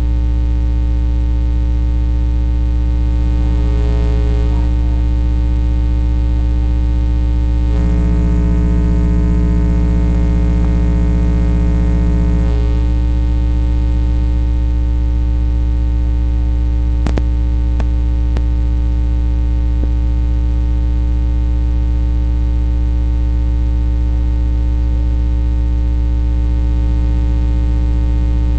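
Loud, steady electrical mains hum with a stack of buzzing overtones, covering everything else. It grows a little louder and buzzier for about five seconds in the middle, and a few faint clicks come about two-thirds of the way through.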